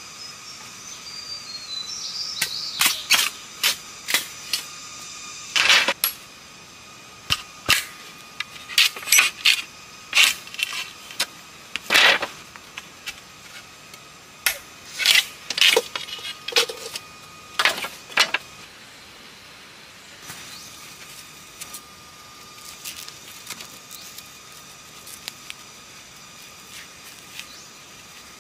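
Irregular sharp knocks and clacks, several a second in clusters, for most of the first two-thirds, then only a few faint ones.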